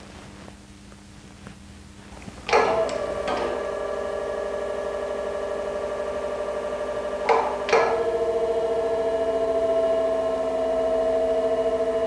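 Self-contained electro-hydraulic valve actuator partially stroking its valve: a few sharp clicks about two and a half seconds in, then the unit's pump motor runs with a steady hum. Two more clicks come about seven seconds in, and the hum shifts slightly in pitch after them.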